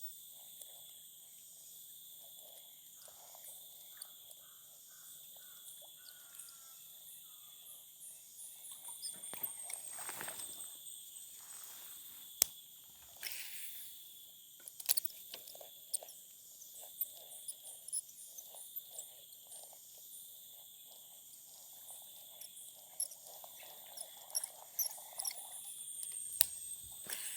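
Steady high-pitched insect chorus, several shrill tones at once, with scattered light clicks and taps and a brief rustling swell about ten seconds in.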